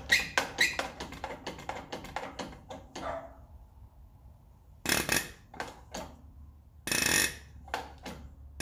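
Hand-lever diesel injector pop-off tester being worked, with a run of quick clicks, then a 12-valve Cummins fuel injector popping off twice with a short, buzzing spray. This injector pops cleanly, a sign that it is working properly.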